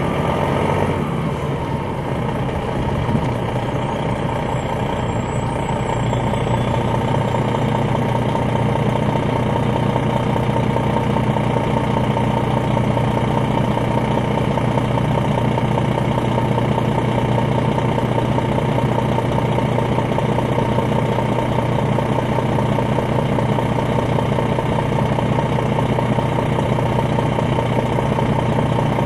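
Detroit Diesel Series 60 diesel engine of an MCI D4000 coach running at a steady, unchanging pitch, heard from inside the bus, with a steady whine over the engine note.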